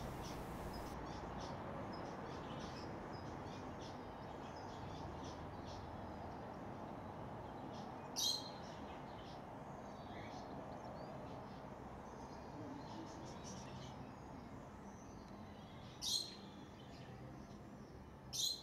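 Outdoor ambience with small birds chirping, over a steady low background rumble. Three short, louder calls stand out, about 8 s in, about 16 s in and near the end.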